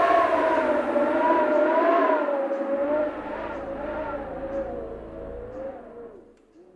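Dark ambient drone for horror sound design: a wavering, slowly sliding pitched tone over hiss, joined by a low rumble about halfway through, fading out toward the end.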